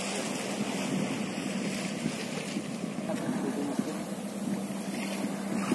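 Small wooden fishing boat's engine running with a steady low hum, under wind on the microphone and choppy water.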